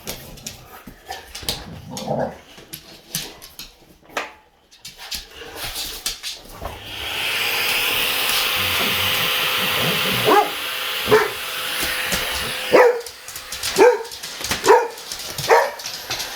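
A vacuum cleaner switches on about seven seconds in and runs steadily with a hum. From about ten seconds boxer dogs bark at it, six or so short sharp barks over the machine's noise. Before it starts there are only scattered light clicks and scuffles.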